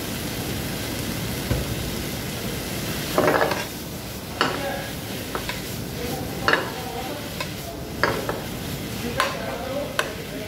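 Bitter gourd stir-fry sizzling in a pan over a gas burner while it is stirred and tossed, with a steel ladle and the pan clattering in about six sharp knocks, the loudest about three seconds in.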